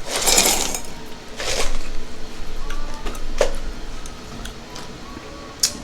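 A few short clattering, rustling noises from a drink cup and dishes being handled at the table, then a sharp click near the end.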